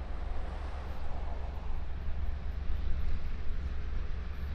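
Low, fluctuating wind rumble on the microphone over faint, distant vehicle noise.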